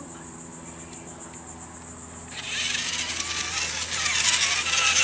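Remote-control toy monster truck's small electric motor and plastic gearbox whirring as it drives, starting about halfway through and growing louder, with a rising whine.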